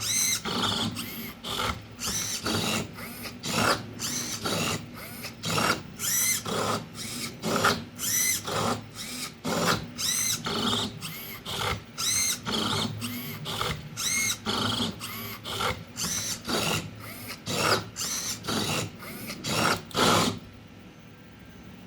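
3D-printed Rubik's cube solving robot's servo-driven grippers whirring in quick, jerky strokes, about two a second, as it turns and regrips the cube. The movements stop suddenly near the end, leaving a faint steady hum.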